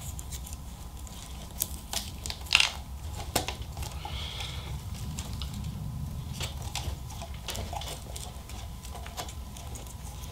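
Wiring harness being handled on a workbench: wires and plastic connectors rustling, with a few sharp light clicks in the first few seconds, over a low steady hum.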